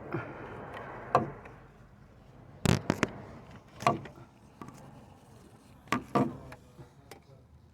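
Sharp metallic clicks and knocks of hand tools and parts being handled during work on an oil pressure switch, about six separate strikes with a quick double one about three seconds in.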